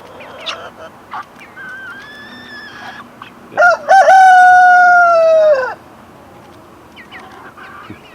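A rooster crowing: one loud held crow of about two seconds that drops in pitch as it ends, preceded by a fainter, shorter held call. Short clucks and peeps from other chickens are scattered around it.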